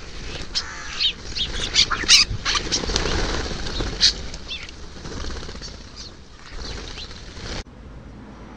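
A flock of common starlings jostling at a ground feeder: wings flapping and a jumble of short squeaky calls and whistles. The sound cuts off abruptly about seven and a half seconds in.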